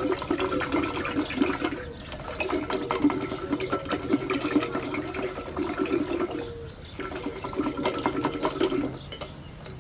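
Yogurt and cold water being churned in a steel pot with a hand-spun plastic churner: fast sloshing and splashing with rapid clicks, in three spells with brief pauses about two seconds in, near seven seconds, and near the end.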